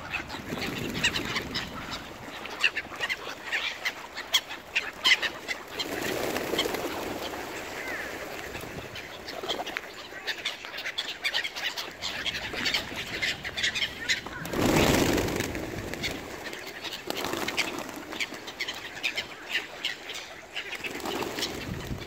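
Mallard ducks quacking among a mixed flock of birds calling and flapping as they crowd in for food. A louder rush of noise comes about two-thirds of the way through.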